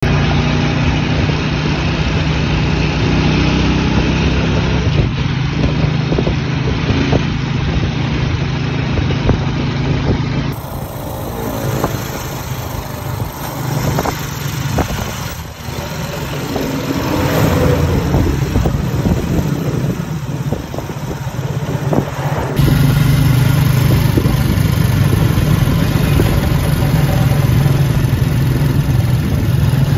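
Vehicle engine running steadily during a ride on a road, with traffic noise. The sound changes abruptly twice, quieter in the middle stretch, as separate recordings are joined.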